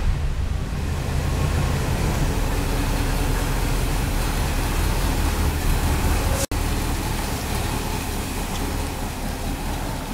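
A 390 cubic-inch V8 in a 1970 Ford F-250 idling steadily with a low, even rumble. The sound cuts out for an instant about six and a half seconds in, then the same steady running carries on.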